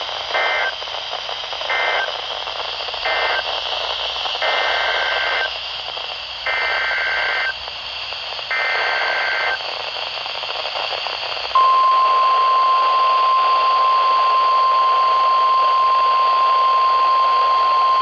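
NOAA Weather Radio alert signalling heard over a radio receiver with background hiss. Three short SAME digital data bursts (the end-of-message code closing the previous warning) are followed by three longer SAME header bursts announcing a new warning. About twelve seconds in, the steady, louder 1050 Hz weather radio alert tone begins.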